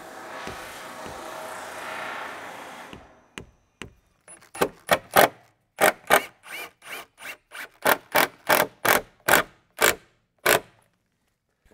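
A steady noise for about the first three seconds, then a cordless Metabo HPT driver running in about fifteen short trigger bursts as it drives screws through a steel door hinge into the jamb, stopping a little before the end.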